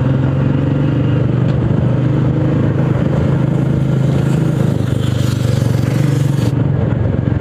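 Royal Enfield motorcycle engine running steadily as the bike rides along, heard from the rider's seat.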